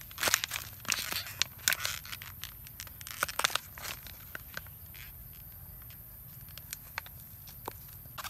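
A clear plastic bag crinkling and rustling as a young macaque and a person's hand tug at it. The crinkling comes in quick clusters over the first four seconds, then thins to a few scattered rustles.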